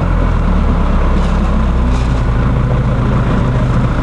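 A vehicle engine idling nearby, a steady low hum.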